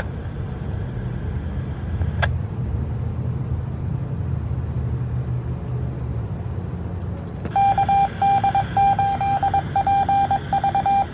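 Steady low rumble with a single click about two seconds in. Then, from near the middle onward, a pulsing electronic beep tone comes over the ham radio net channel, switching on and off several times a second.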